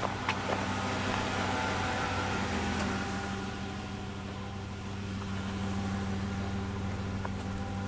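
Steady low mechanical hum with an even hiss over it, and a couple of light clicks in the first second.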